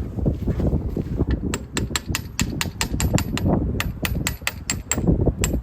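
Mini excavator working at a stump in frozen ground: a low rumble with wind on the microphone, and from about a second and a half in a fast, irregular run of sharp clicks, roughly four or five a second.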